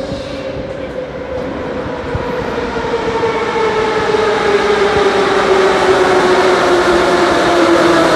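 Moscow Metro 81-717/714.6 train with its traction drive whining, the whine falling steadily in pitch over the rush of the wheels, growing louder throughout.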